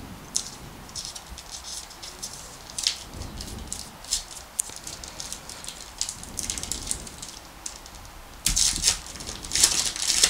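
Crinkling and tearing of a trading-card pack's wrapper as it is peeled open by hand: a run of small sharp crackles, getting louder and denser near the end as the pack tears open.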